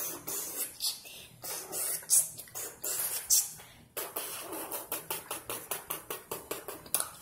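A child making rhythmic hissing mouth sounds, like beatboxing, the strokes settling into a faster, even beat of about four a second in the second half.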